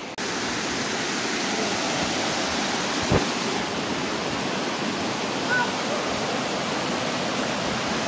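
Mountain stream running fast over granite slabs in a small cascade: a steady rush of white water. A single dull thump about three seconds in.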